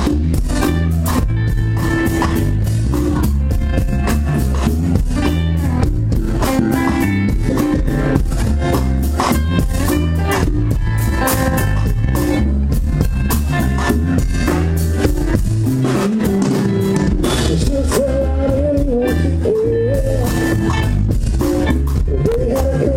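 Live band playing electric guitars and a drum kit with a steady beat and heavy low end.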